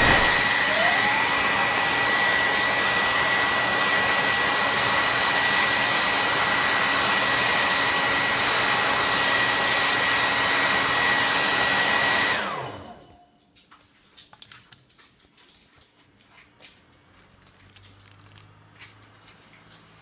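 Hand-held hair blow dryer running, a loud steady rush of air with a thin high whine, switched off about twelve seconds in. Only faint clicks and handling noises follow.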